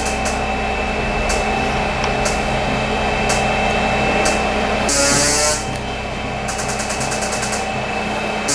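High-intensity magnetic therapy device running a muscle-relaxation programme: trains of rapid clicking pulses over a steady electronic tone, with a louder burst of pulses about five seconds in and again near the end.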